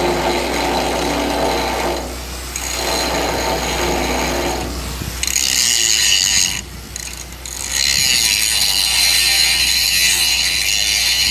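Air carbon arc gouging on a cracked steel tank: a loud, continuous crackling rasp that cuts old cracks out of the metal before they are re-welded. It dips briefly at about two seconds and drops out for about a second near seven seconds before starting again.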